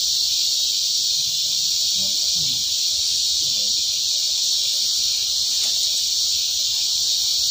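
Dense chorus of insects making a steady, loud, high-pitched buzz.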